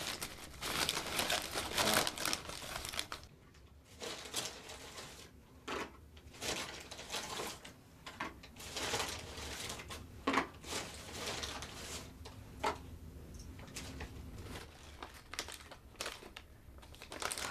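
A bag of chemist's purchases crinkling and rustling as it is handled, in irregular bursts.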